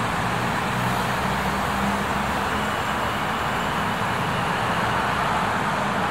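Steady roar of road traffic, with a low engine hum that is stronger for the first couple of seconds.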